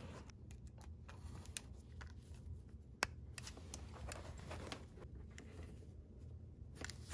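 Faint small clicks and light scrapes of a tiny screw and small screwdriver being handled and fitted into the metal frame of a brass HO-scale model locomotive, with one sharper click about three seconds in.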